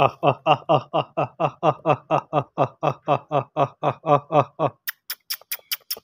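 A man's voice repeating one short syllable very rapidly, about five times a second for over four seconds, then a few sharp clicks near the end.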